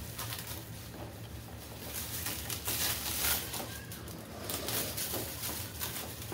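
Clear plastic wrapping crinkling and rustling as it is pulled off a new lawn mower, loudest about three seconds in, over a steady low hum.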